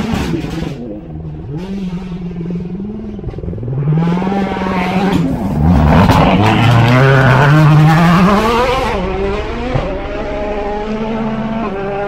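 Rally car speeding past on a gravel stage, its engine revving up and down sharply through gear changes. It is loudest about six to nine seconds in, with a few sharp cracks near the start.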